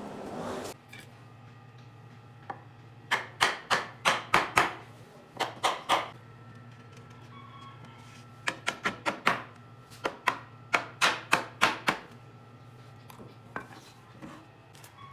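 Hammer blows on wood in quick runs of three to seven strikes, with pauses between the runs. A low steady hum lies underneath.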